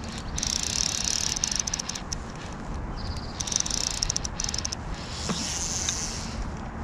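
A fly reel's click drag ratcheting in three spells of rapid, high-pitched clicking while a strong hooked rainbow trout is played on a fly rod.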